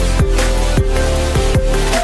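Background music: an electronic track with a driving beat, held synth notes and bass drops that fall in pitch about twice a second.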